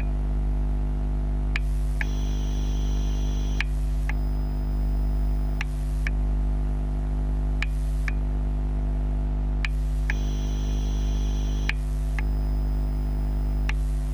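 LCD Charger TGX12 NiMH/NiCd battery charger, heard through contact microphones: a steady electrical hum with a buzzing whine on top. The whine changes its tones in a cycle of about two seconds, with a short break and a faint click at each change. This is the strange noise the charger makes while charging.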